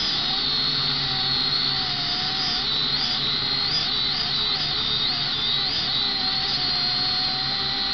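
Potensic quadcopter's small electric motors and propellers whining close to the onboard camera, the pitch wobbling up and down again and again from a couple of seconds in as the motor speeds change in flight.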